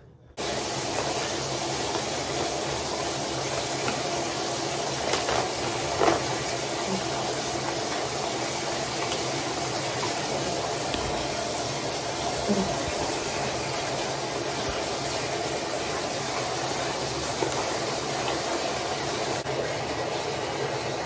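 Water running steadily into a bathtub from the tap, starting abruptly just after the beginning, with a few light knocks over it.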